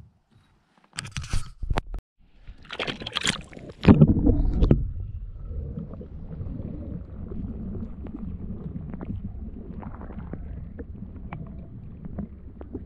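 Water splashing and sloshing as a camera is pushed under the lake surface, loudest about four seconds in. Once it is submerged, the underwater sound is a muffled, steady low rumble with faint scattered clicks.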